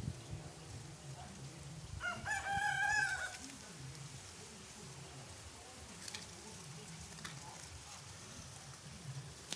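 A rooster crowing once, about two seconds in: a single drawn-out crow of roughly a second, rising, held and dropping at the end, over a faint low background.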